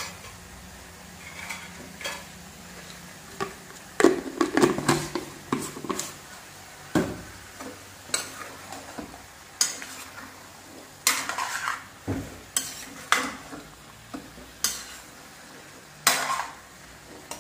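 A metal spoon stirring chicken pieces in a frying pan, scraping and knocking against the pan in irregular strokes. The first few seconds are quieter, and the stirring starts about four seconds in.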